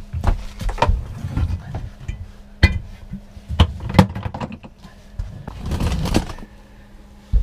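Scattered knocks and clunks of an RV toilet being carried and handled, with footsteps, then a longer scraping rustle about six seconds in as it is lowered onto its floor mounting.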